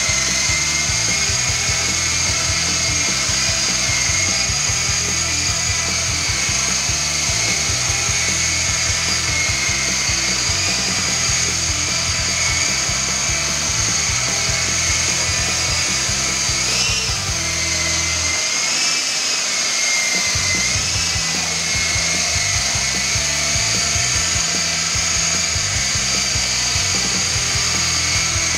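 Electric motors and contra-rotating rotors of an Art-Tech MD500 coaxial RC helicopter whining steadily in flight. The whine's pitch dips and rises a few times about two-thirds of the way through. Background music plays underneath.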